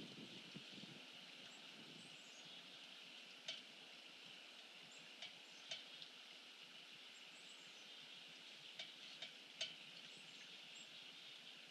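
Faint small-bird chirps, short high downward notes every second or two, over a steady hiss, with a few sharp ticks scattered through.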